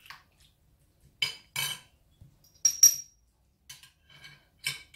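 A metal spoon knocking and scraping against a glass bowl of ceviche, about six short clinks, the loudest a pair of ringing clinks about three seconds in.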